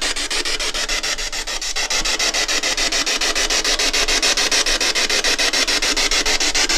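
Ghost box (spirit box) sweeping through radio frequencies: a steady hiss of static chopped into about nine quick pulses a second.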